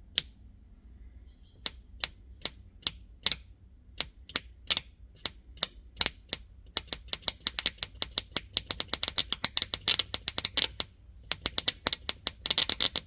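A run of sharp mechanical clicks, a few per second at first, then quickening into dense rapid runs about seven seconds in, with a short pause before a final fast run.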